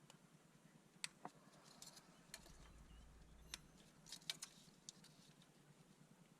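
Near silence with a low faint hum and a scattered series of faint, sharp clicks and taps, a few of them bunched together about four seconds in.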